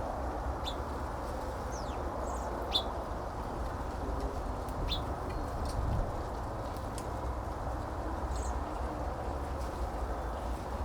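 Birds at a backyard feeder giving a handful of short, high chirps, spaced a couple of seconds apart, over a steady low background rumble.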